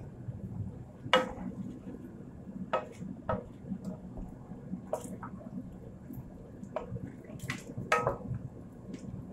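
Scattered light clicks and knocks from handling a carton of chicken broth and its small plastic screw cap, about eight in all, the sharpest about a second in, over a steady low background.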